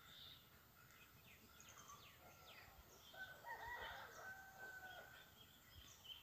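Faint rooster crowing once, a call of about two seconds starting about three seconds in, with small birds chirping around it.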